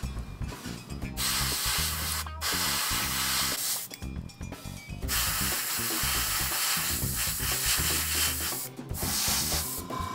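Airbrush spraying paint in four bursts of hiss, the first starting about a second in, with a short break after it, a longer pause around four to five seconds, and a brief break near the end.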